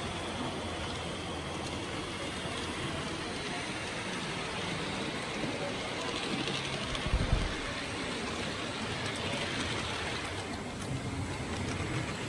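Steady background noise of a large hall, with a single low thump about seven seconds in.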